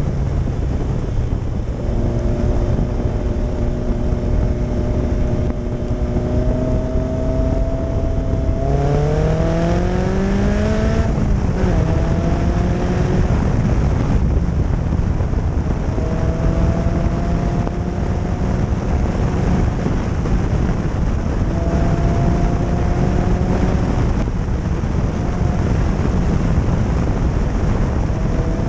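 The Caterham 7's tuned 2.0-litre Ford Zetec four-cylinder engine is under way, heard over heavy wind and road noise from the open cockpit. The revs climb gradually, rise quickly about nine seconds in and fall back sharply at about eleven seconds. Then the engine settles into a steady cruise with brief lifts of the throttle.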